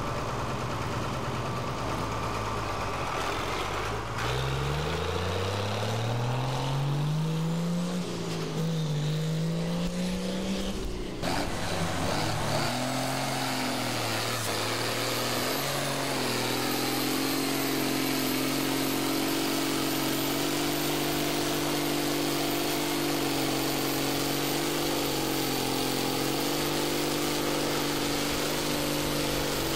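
A farm tractor's diesel engine revving up, its pitch climbing over several seconds. After a sudden break, a tractor's diesel engine runs steadily at high revs under heavy load while dragging a weighted pulling sled.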